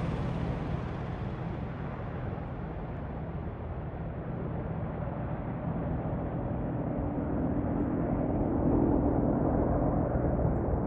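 Boeing AH-64E Apache helicopters' rotors and engines fading as they fly off, then growing louder again in the second half.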